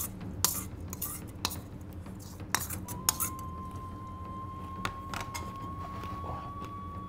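Metal spoon and fork scraping and clinking against a stainless steel two-handled bowl, scooping up the last of the food, with several sharp clinks over the first three seconds. A steady thin high tone sets in about three seconds in and holds.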